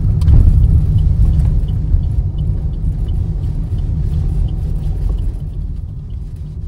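Road noise inside a moving car's cabin: a steady low rumble of engine and tyres, easing off a little near the end. A faint regular ticking runs through it, about two or three ticks a second.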